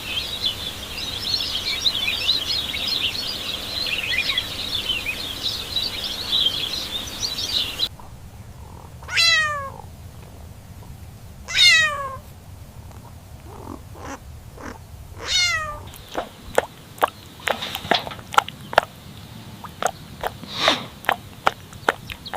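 Three falling, high-pitched kitten meows about two to four seconds apart, after about eight seconds of dense high chirping and before a run of quick sharp clicks.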